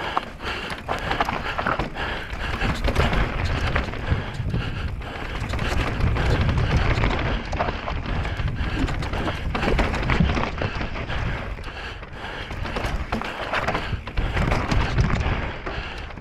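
Wind rushing over the microphone of an e-mountain bike descending a rough trail at race speed, with tyres running over loose stones and constant rattles and knocks from the bike.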